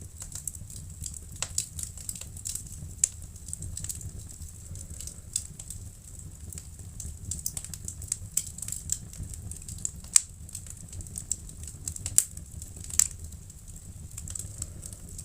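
Wood fire crackling in a fireplace: irregular sharp snaps and pops, a few louder than the rest, over a low steady rumble.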